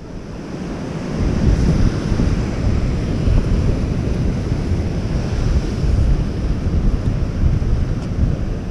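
Surf breaking and washing over rocks, with wind buffeting the microphone in a steady low rumble.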